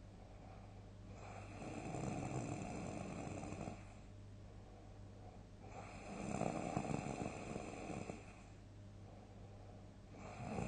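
A sleeping person snoring loudly: long, deep snores on each breath, coming about every four and a half seconds, two full snores and a third beginning near the end.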